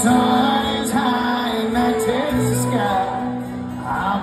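Live country band: strummed acoustic guitars with a fiddle carrying the melody, its notes sliding up into each other, in an instrumental passage between sung lines.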